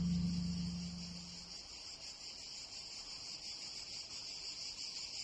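Insects chirping in a steady, high-pitched, finely pulsing drone of summer ambience. A low note of music fades out during the first second and a half.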